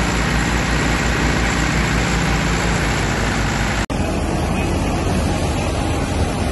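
Massey Ferguson 385 tractor's diesel engine running steadily under load with an even low pulse, driving a wheat thresher through its PTO shaft. A momentary break about four seconds in, after which the thresher and engine run on together with a duller sound.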